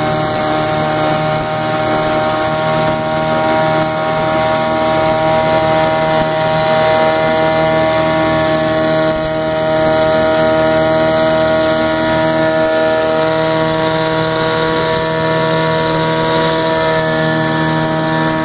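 Vintage Mercury Kiekhaefer KE4 7.5 hp two-stroke outboard motor running at a steady throttle while the boat is under way, holding one even pitch throughout, with a hiss of water wash and wind under it.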